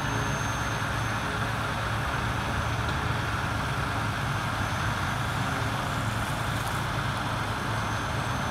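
Heavy rotator tow truck's diesel engine running steadily while its winch lifts an overturned car, a constant low hum.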